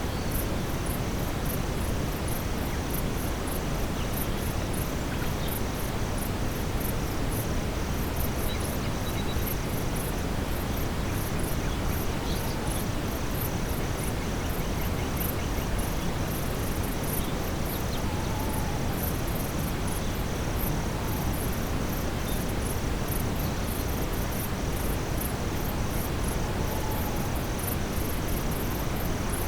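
Evening forest ambience: insects chirping in rapid, pulsing trills high in pitch, with a second, steadier trill a little lower, over a constant bed of brown noise. A few faint, brief calls come through lower down.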